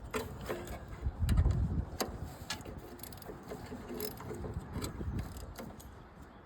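12mm socket tightening a terminal nut on a mower's starter solenoid: irregular small metallic clicks and taps, with a louder dull thump about a second and a half in.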